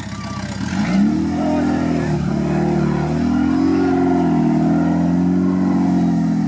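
Suzuki Samurai 4x4's engine revving hard under load as it climbs over dirt, its pitch rising steeply about a second in and then swinging up and down with the throttle.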